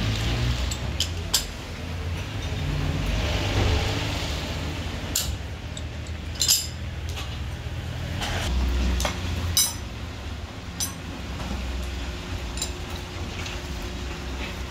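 Metal tools and steering-rack parts clinking as a car's steering rack is taken apart by hand: scattered sharp metallic clinks over a low background rumble.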